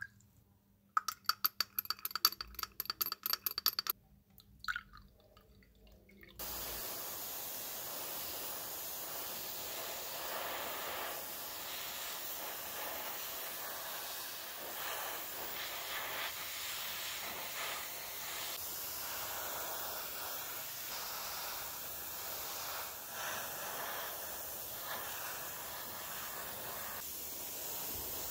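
A quick run of light clinks with a ringing tone on a small glass beaker. About six seconds in, a steady hiss of compressed air spraying starts and holds evenly.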